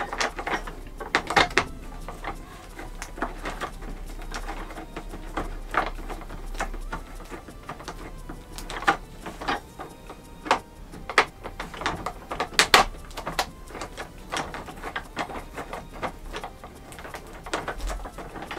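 Parts of a Mainstays office chair clicking and knocking as the backrest and its ribbed post are handled and worked into place: irregular sharp clicks, a few louder knocks among them.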